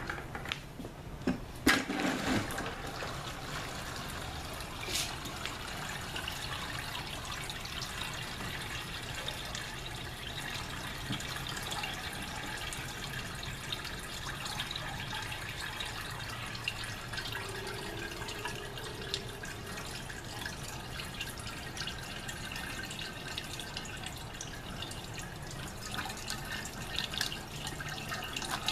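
Soapy hot water sloshing and gurgling in a bucket as a hand plunger washer agitates a load of socks, with a few knocks near the start.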